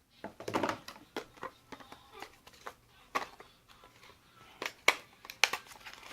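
Cosmetic packaging being handled and opened by hand: irregular small plastic clicks and taps, with a short rustle about half a second in and sharper clicks near the middle and toward the end.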